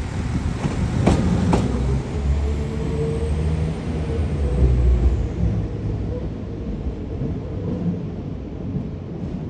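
Northern Class 195 diesel multiple unit running through a station, a steady low engine and wheel rumble with two sharp clicks about a second in and a faint high whine. The rumble eases off toward the end as the train slows.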